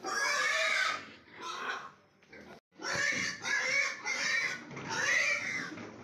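Large White Yorkshire pigs squealing loudly as they are grabbed and lifted down off a truck by hand: one long shrill squeal, a shorter one, then a run of squeals close together in the second half.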